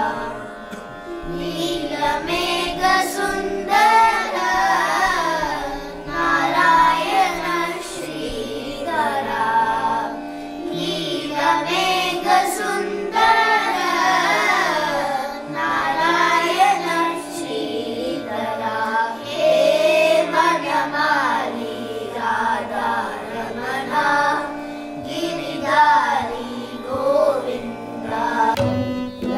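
A group of children singing an Indian classical vocal piece, their voices gliding through melodic phrases over a steady drone.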